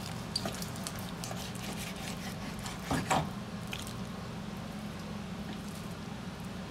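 Kitchen knife cutting raw pork on a wooden cutting board: wet squishing and small clicks as the blade works through the meat, with one louder thump about three seconds in. A steady low hum runs underneath.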